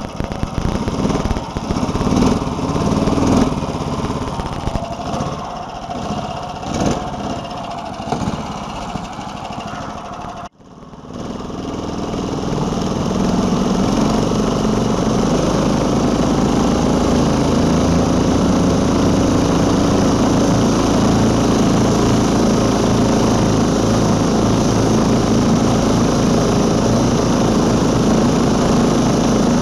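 Small single-cylinder petrol engine of a homemade one-ski snowmobile running, its note rising and falling unevenly for the first ten seconds. After a sudden break about ten seconds in, it drones steadily while the machine travels along the track.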